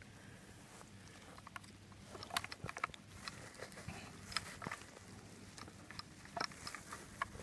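Faint scattered clicks and rustles of hands working a fishhook out of a carp's lip close to the microphone, starting about two seconds in, over a low steady hum.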